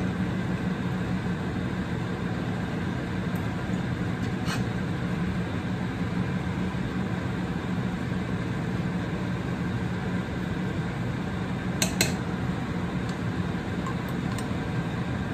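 Metal ladle scooping broth from an aluminium stockpot and clinking against the pot and a clay bowl: a single clink about four seconds in and a sharp double clink about twelve seconds in, the loudest sounds here. Under them runs a steady low hum.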